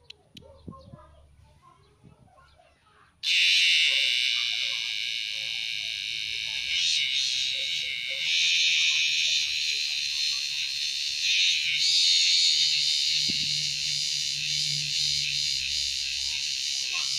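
A cicada held between the fingers breaks into a loud, shrill buzzing about three seconds in and keeps it up, swelling and easing but never stopping; a cicada gripped like this is typically giving its distress call.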